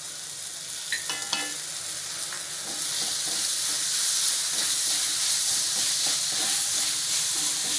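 Chopped onion, capsicum and tomato with chilli and masala powders frying in oil in a pan and being stirred, the sizzle growing louder about three seconds in, after tomato sauce has just gone in. A short ringing clink about a second in.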